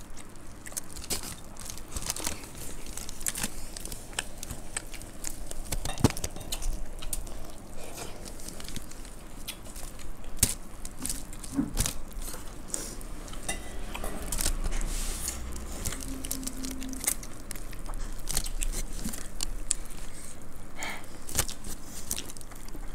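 Close-up chewing and crunching of puffed rice (murmura) mixed with ghugni, eaten by hand, with many small crackles and clicks. Fingers rustle through the food.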